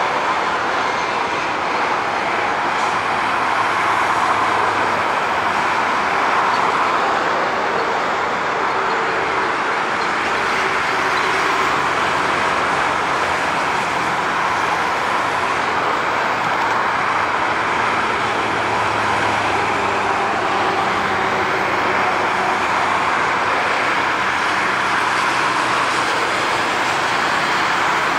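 Boeing 747 freighter's four jet engines running steadily at low power as it rolls down the runway after landing: a constant rush of jet noise with a faint underlying hum.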